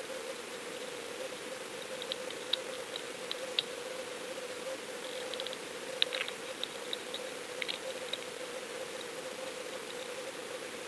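Underwater sound picked up by a submerged fishing camera: a steady hiss and a constant low hum, with scattered small sharp clicks and ticks through the middle.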